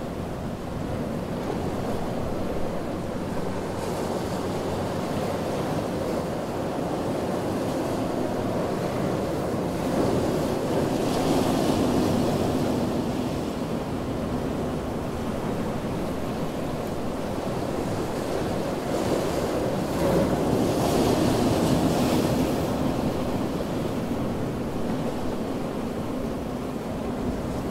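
Ocean surf washing steadily onto a beach, with two larger waves swelling and breaking, about ten seconds and about twenty seconds in.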